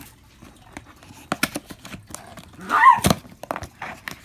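Cardboard packaging being handled: scattered knocks, taps and scrapes of the box and its inner cardboard insert. About three seconds in there is a short wavering pitched sound, the loudest moment, followed at once by a dull thunk.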